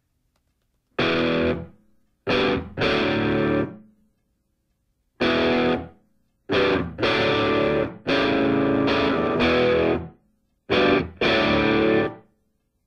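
Distorted electric guitar music: chords struck in short phrases, each ringing about half a second to two seconds and then stopping, with brief silent gaps between them.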